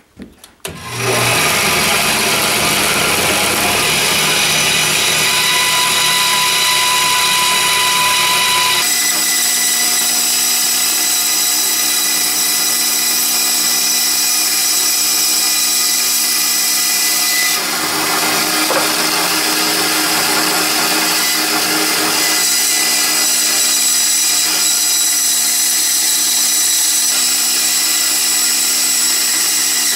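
Benchtop band saw switched on about a second in, its motor and blade running steadily while the blade cuts through a 2x6 pine block. The sound changes abruptly about nine seconds in.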